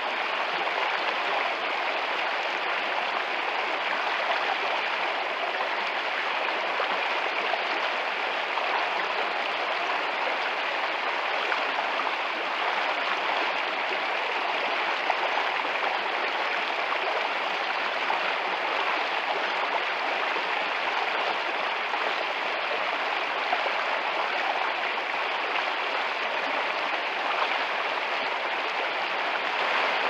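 A brook babbling steadily: an even rush of running water with small splashes, without pauses.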